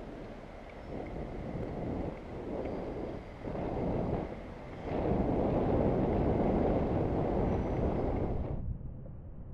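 Wind buffeting an action camera's microphone while cycling through traffic, a rough rushing noise that swells in surges and is loudest in the second half, then drops away abruptly near the end.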